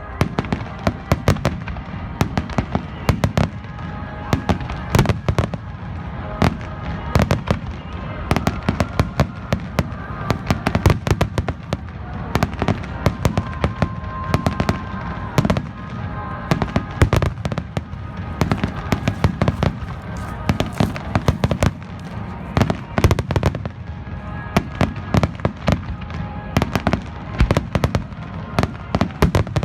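Fireworks going off in a dense, rapid barrage, many sharp bangs a second, over music playing underneath.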